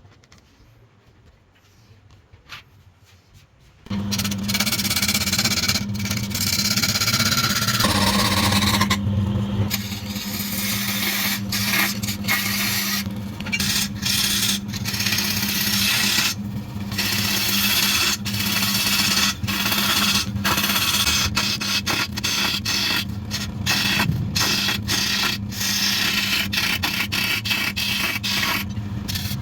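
Wood lathe running with a steady hum while a tool scrapes and cuts against the spinning wood, lifting off and biting again many times. It comes in suddenly about four seconds in, after a faint stretch.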